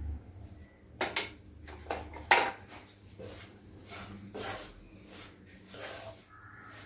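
Wooden spatula stirring and scraping a dry, crumbly mixture of roasted rava, ragi flour and vegetables around a non-stick kadai, being dry-roasted. The strokes are irregular, the sharpest about one second and two and a half seconds in, then softer ones.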